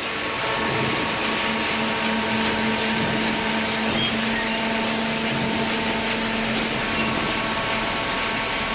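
Industrial cardboard baler machinery running: a steady mechanical hum over a constant hiss, with no strokes or pauses.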